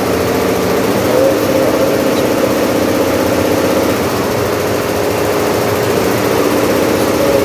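Computerized multi-head embroidery machine running, a steady mechanical drone with a few wavering hum tones.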